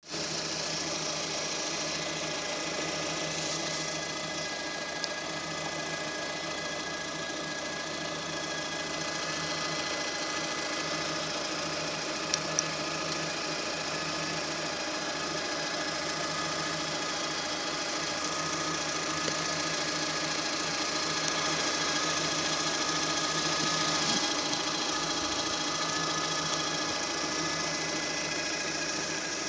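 Lada Granta engine idling, with a steady high-pitched whistle (squeak) over the engine note, which the owner traces to the crankshaft position sensor.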